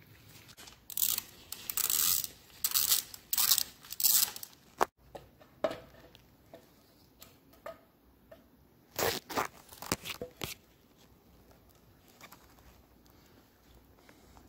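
Workshop handling noises: a run of short scraping, rustling sounds, one sharp click about five seconds in, and another cluster of scrapes around nine to ten seconds as the Hawk DLX 250's right-side clutch cover is worked off its gasket.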